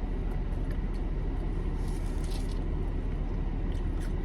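Car engine idling, heard as a steady low rumble from inside the cabin, with a few faint soft clicks about halfway through.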